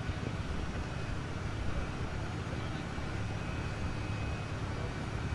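Steady low rumble of an idling engine, with a faint steady high-pitched whine over it.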